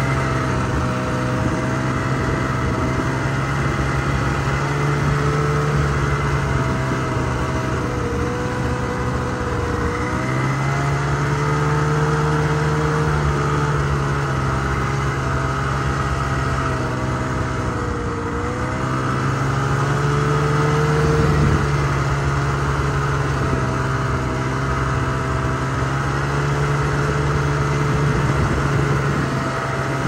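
Snowmobile engine running steadily, its revs rising and falling several times as the throttle changes.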